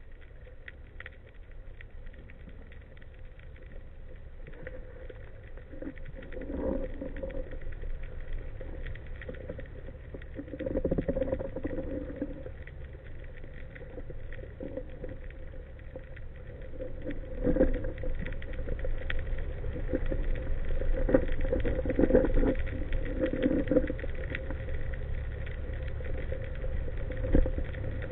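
Underwater ambience picked up by a camera in its housing: a steady low rumble of moving water with constant faint crackling and ticking. Louder swishes come every few seconds.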